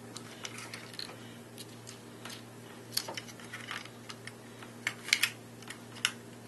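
Small plastic robot-arm kit parts being handled and pressed together: irregular light clicks and snaps, a few sharper ones around the middle and near the end.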